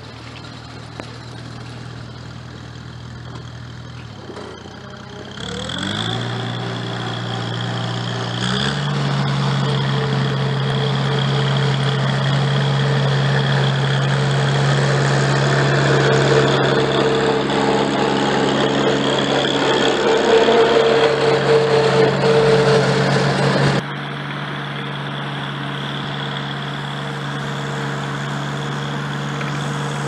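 International Harvester Cub Lo Boy tractor's small four-cylinder gasoline engine running, speeding up about five seconds in and again near nine seconds, then holding a steady, higher note under load. Near the end the sound drops abruptly to a quieter steady running.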